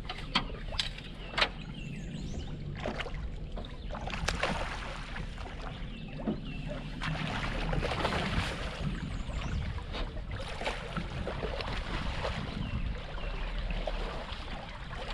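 A striped bass being landed with a net at the side of a boat: water splashing and scattered knocks and clicks against the boat, loudest about halfway through, over a steady low rumble of wind on the microphone.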